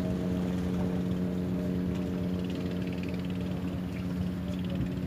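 A boat's engine running steadily, heard across open water as a constant low drone with overtones.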